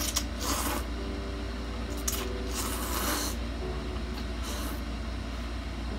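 Noodles of spicy instant ramen soup being slurped in with chopsticks: four short slurps, the longest about three seconds in, over a steady low hum.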